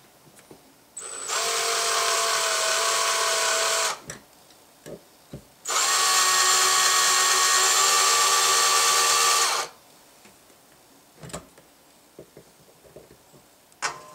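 Electric drill running in two steady bursts of about three and four seconds, its bit grinding into a steel rivet of a Saiga rifle receiver to drill it out. A few light clicks fall in the pauses between and after the bursts.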